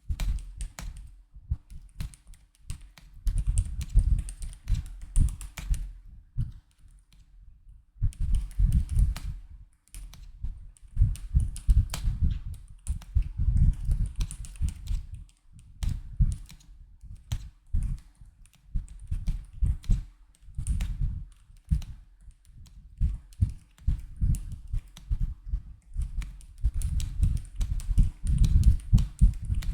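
Typing sound test on a mechanical keyboard fitted with Akko Fairy silent linear switches, dampened on both press and release: muted, low keystrokes in fast runs, broken by brief pauses.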